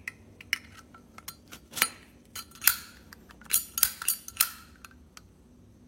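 Metal clicks and clinks of a Zippo lighter being handled: the steel insert and case knocking together and the lid clacking. A series of sharp ticks, with a cluster of louder, ringing clinks a little past the middle.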